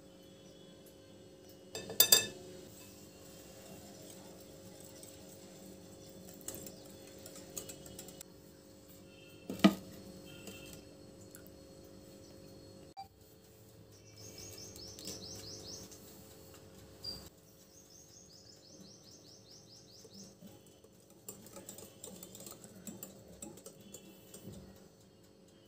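Kitchen work at a glass mixing bowl: two sharp knocks of kitchenware, about two seconds in and about ten seconds in. A small bird trills twice, each time a rapid run of high chirps, in the middle. Near the end a wire whisk scrapes around the glass bowl as batter is beaten.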